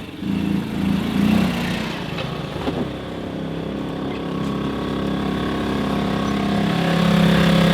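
Small motorcycle engine running under load, its pitch and loudness slowly climbing toward the end, as the bike is ridden off a river ferry.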